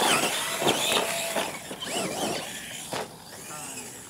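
Electric motors of radio-controlled monster trucks whining and rising and falling in pitch as they are throttled, with a few sharp knocks, the loudest about three seconds in.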